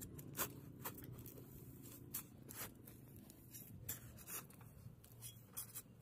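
Faint crunching scrapes of a steel spade digging into dry garden soil and old stalks, a short crunch every half second to a second at an uneven pace.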